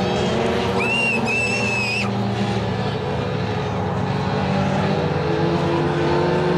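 Legends race car's Yamaha motorcycle engine running steadily at speed on track. A high whistle-like squeal sounds about a second in and lasts about a second.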